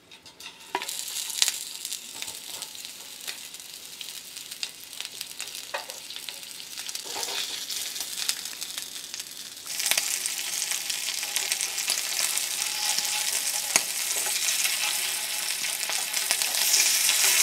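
Mini sausages sizzling in hot oil in a tiny stainless-steel frying pan, with light clicks now and then as chopsticks turn them against the pan. The sizzle grows louder about ten seconds in.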